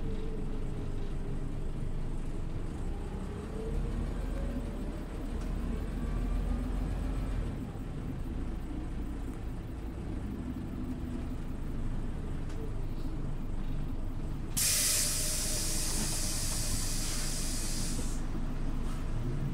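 Scania OmniLink city bus running, its engine rumbling steadily with a whine that rises in pitch for a few seconds as it picks up speed. Later a loud hiss of released compressed air from the bus's pneumatics lasts about three and a half seconds, then cuts off.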